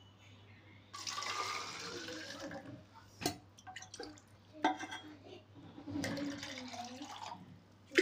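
Water poured twice from a steel tumbler into a small bottle, the pitch rising as the bottle fills. Between the pours, sharp clinks of the steel tumbler against the clay water pot as it is dipped in for more.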